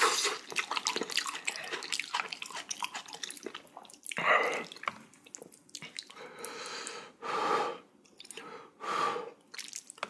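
Close-miked wet chewing and slurping of spicy jjamppong noodles: a rapid patter of small wet clicks for the first few seconds, then four short, separate bursts.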